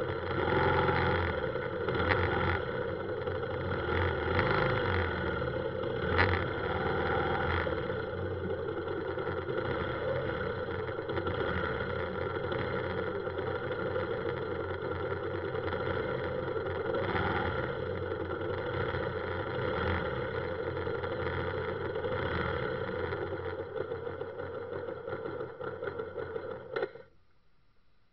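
Motorbike engines idling in a stalled traffic jam, a steady engine hum with a few louder knocks in the first several seconds. The sound cuts off suddenly near the end.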